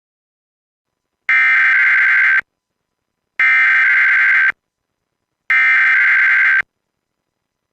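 Emergency Alert System SAME header: three identical bursts of digital data tones, each about a second long and about a second apart. They open an automated required weekly test of the Emergency Alert System.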